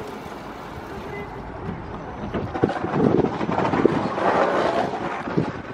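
Noise of a standing Newag 14WE electric multiple unit at a platform: a steady machinery hum mixed with wind buffeting the microphone, growing louder a few seconds in, with a few short low knocks.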